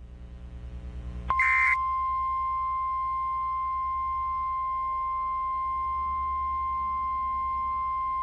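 NOAA Weather Radio warning alarm tone: a single steady high tone that comes on about a second in with a brief burst of static, then holds unchanged. It is the 1050 Hz alert tone that signals a warning message is about to be read.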